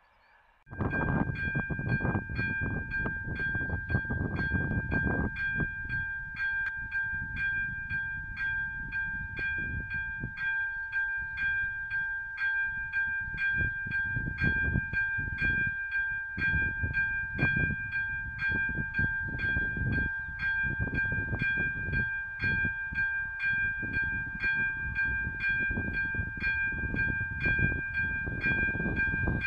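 Level-crossing warning bell switching on about a second in and ringing steadily, with about two strikes a second over a held ringing tone: the crossing signalling an approaching train.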